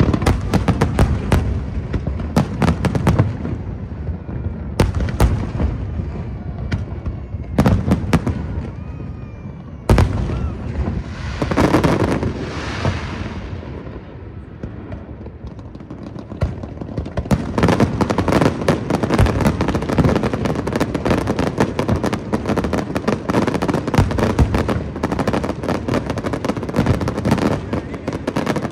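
Fireworks display: a string of loud bangs and booms, a hissing swell about twelve seconds in, then dense rapid crackling and popping through the second half.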